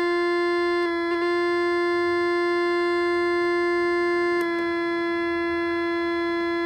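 Square-wave tone from a CMOS 4069 inverter relaxation oscillator, played through a small loudspeaker by the chip's push-pull amplifier: a steady, buzzy single pitch. Short contact clicks about a second in and again about four and a half seconds in, where the tone gets slightly quieter, as jumper wires are moved on the breadboard.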